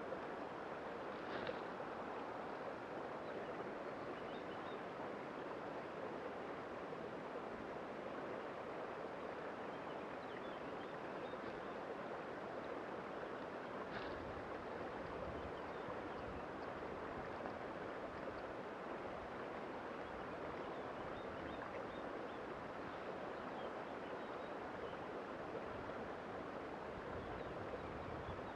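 Steady rush of flowing river water. A brief knock comes about a second and a half in and another around fourteen seconds, with some low rumble coming and going after the second one.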